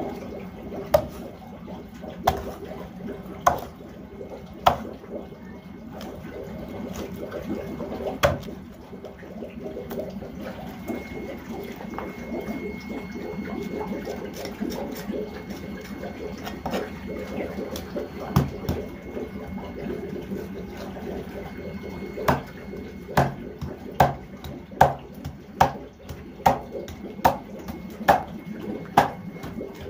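Cleaver and knife working a large fish on a wooden chopping block: scattered sharp knocks of the blade on the block, then a quick, regular run of about a dozen knocks, roughly two a second, in the last several seconds, over a steady background hiss.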